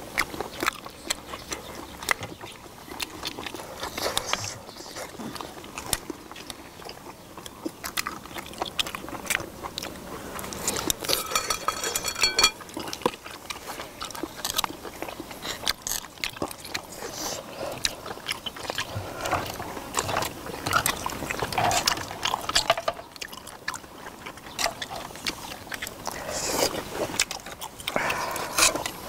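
Eating sounds from a seafood stew: chewing and biting, with irregular clicks of chopsticks, a ladle and shellfish shells against the iron cauldron-lid pan.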